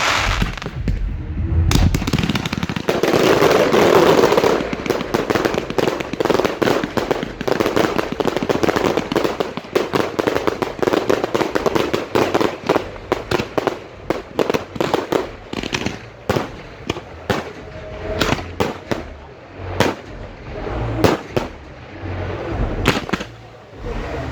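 Fireworks going off at close range: a dense barrage of rapid bangs and crackle, thinning out after about sixteen seconds into separate sharp reports.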